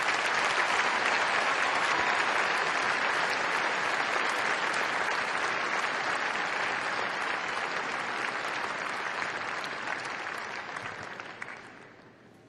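Large audience applauding, swelling up at the start, holding steady, then dying away near the end.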